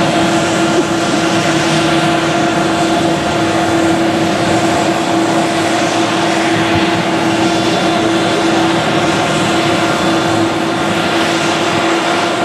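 Boeing 787 Dreamliner's GE turbofan engines running at low taxi power: a steady rushing jet noise with a constant tonal hum running through it.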